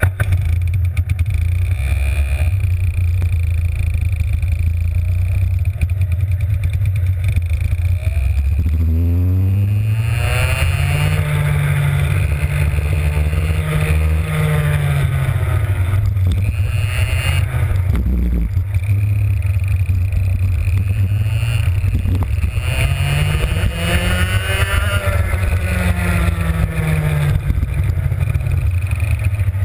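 Two-stroke racing kart engine catching and running at low revs, then revving as the kart is driven. The pitch climbs and holds high, drops back, then climbs and falls again near the end.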